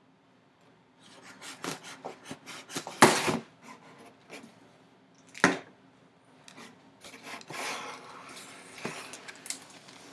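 A knife slitting the tape seal on a cardboard mailer box, followed by cardboard rubbing and scraping as the lid is pulled open. There are two sharp, loud scrapes, about three and five and a half seconds in, and a softer rustling stretch near the end.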